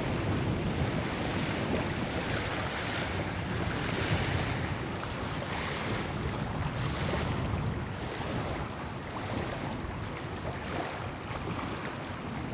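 Wind buffeting the microphone, a steady low rumble, with a higher hiss that swells and fades every second or two.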